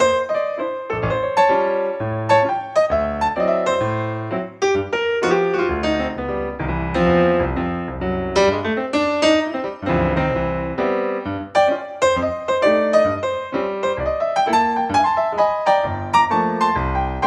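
Piano music playing a steady run of separate notes over a bass line.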